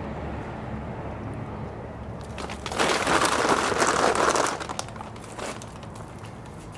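Plastic bag of seed-starting mix crinkling and rustling as it is handled, loudest for about two seconds from around two and a half seconds in, with a short rustle again later. A steady low rumble runs underneath.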